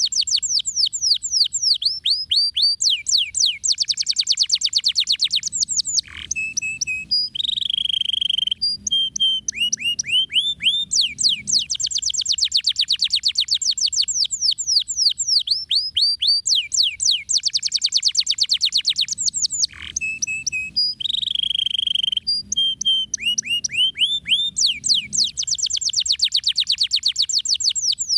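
Domestic canary singing a fast, continuous song: long rolling runs of rapid falling whistled notes, broken twice by short held notes and chattering phrases.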